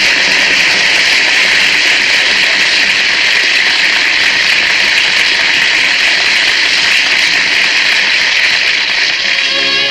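Studio audience applauding steadily, with the orchestra starting to play near the end.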